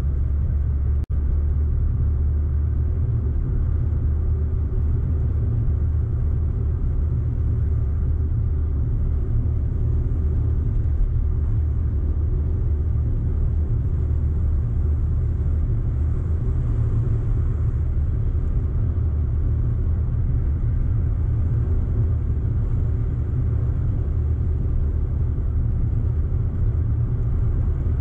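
Audi car driving steadily, a constant low rumble of engine and road noise.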